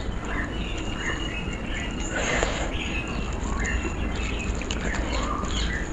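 Bare fingers mixing and squishing wet panta bhat (soaked water rice) with potato fry on a steel plate, with a soft noisy squelch a little after two seconds in. Small birds chirp repeatedly in the background.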